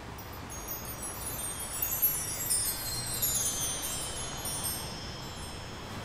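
Background music with a shimmering wind-chime cascade: many high ringing tones enter one after another, moving downward in pitch, and fade out near the end over a soft low drone.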